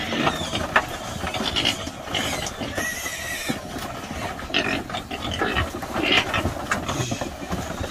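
A group of pigs grunting and squealing together in a pen, with several short, sharp squeals rising above the steady grunting.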